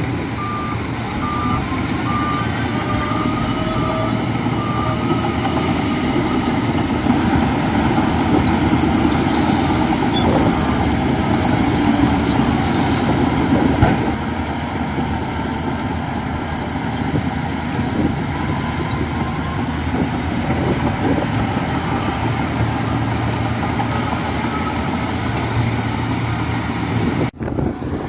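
Heavy diesel machinery running steadily, bulldozer and garbage truck engines, with a truck's reversing beeper sounding for the first few seconds.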